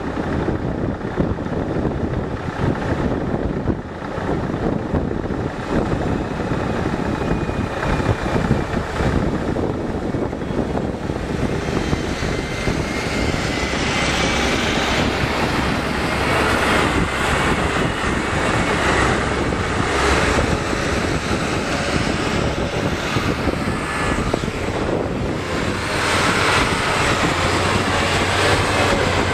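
Diesel farm tractor pulling a sugar-beet trailer drives past close by, its engine drone getting louder from about halfway through as it passes.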